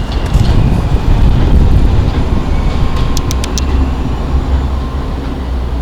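NYC subway train running along the track with a heavy steady rumble. A quick run of sharp metallic clicks comes about three seconds in.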